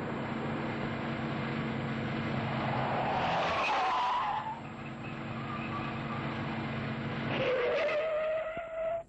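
Car engine running steadily, with tyre squeals: one about three and a half seconds in, and a longer, rising squeal near the end.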